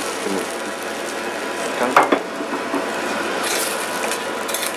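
A metal spoon stirring and scraping tomato sauce in a stainless steel frying pan, over a steady sizzle from the pan. A couple of sharper scrapes come about two seconds in.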